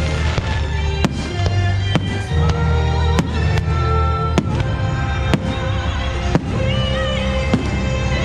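Fireworks bursting with sharp bangs, one or two a second, over loud show music with a heavy bass.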